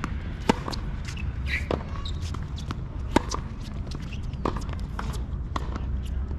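Sharp knocks of a tennis ball on racket strings and hard court, a handful of them a second or so apart, the loudest about half a second in and about three seconds in, over a steady low background rumble.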